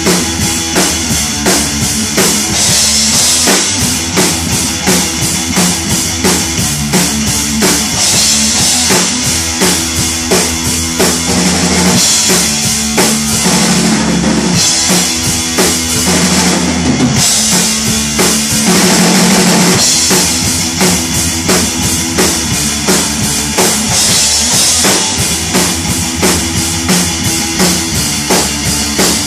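Live rock band playing loud: drum kit with bass drum and snare keeping a steady, rapid beat under electric guitar and bass guitar.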